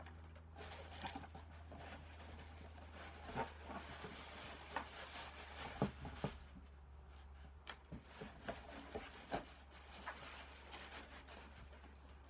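Handling noises from a shoebox and its packaging: scattered light taps, knocks and rustling, over a steady low hum.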